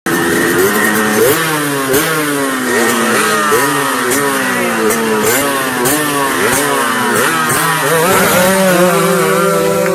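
Two Yamaha RX115 two-stroke single-cylinder motorcycles revved over and over at the start line before a race launch, their pitch rising and falling repeatedly. Near the end they hold a higher, steadier pitch.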